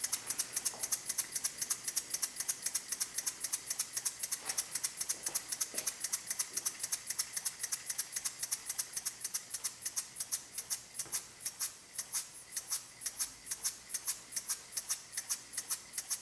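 Small single-acting spool valve model steam engines running on low-pressure compressed air. They give off an even stream of short ticking exhaust puffs, about five a second.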